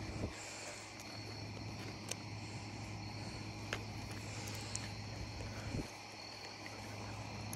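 Crickets chirping steadily at a high, even pitch, over a low steady hum, with a few scattered clicks and scuffs.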